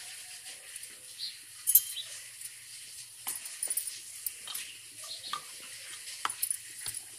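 A steady faint hiss from a roti cooking on a tawa over a wood-fired clay stove, with scattered sharp clicks and clinks from bangled hands handling dough on a steel plate; one louder click a little under two seconds in.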